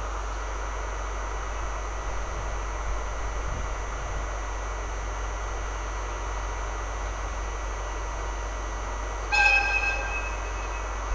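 The horn of the departing TRAIN SUITE Shiki-shima sounds once, far off, about nine seconds in. It is a short bright blast that trails off more faintly, over a steady background hiss.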